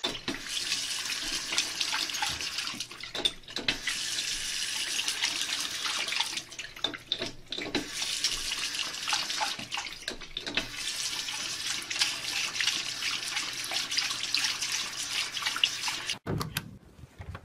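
Water running from a bathroom sink tap into the basin as a steady splashing hiss, dipping briefly now and then, and cutting off suddenly near the end.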